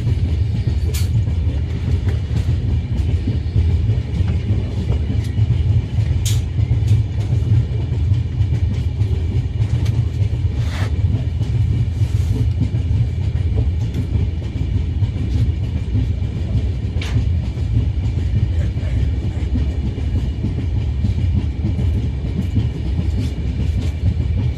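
A train running at speed: a steady low rumble, with a few sharp clicks scattered through it.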